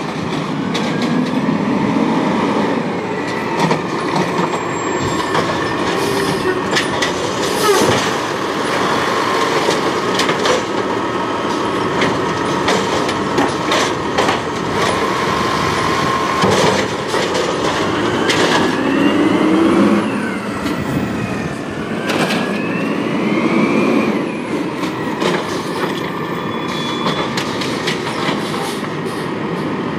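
Peterbilt 320 garbage truck with an Amrep automated side-loader arm working curbside carts: the engine runs loud and steady, its pitch rising and falling several times in the second half as the hydraulic arm lifts and empties a cart. Frequent knocks and clanks come from the cart and the arm throughout.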